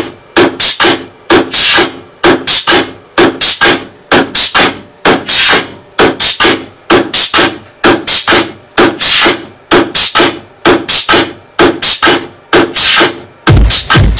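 Electronic dance music played loudly through a pair of Wharfedale Titan 12D passive PA speakers driven by a Kenwood KAC-7404 car audio amplifier: a steady rhythmic beat of sharp percussive hits, with deep bass beats coming in about a second before the end.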